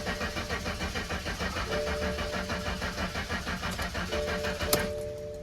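BMW M54 straight-six turning over on the starter with an even rhythmic chugging but not catching. Near the end the cranking stops with a sharp click. It is a crank-no-start, which the owner puts down to no signal from the crankshaft position sensor.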